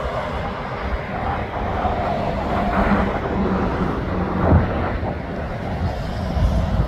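Heavy semi-trailer truck driving past on a highway: steady engine and tyre noise. A brief low thump comes about four and a half seconds in.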